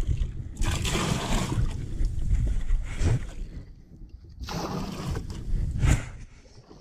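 Lake water scooped with a plastic pitcher and poured into a boat's live well, splashing and sloshing in a few pours, the well being filled by hand because its aerator pump doesn't work.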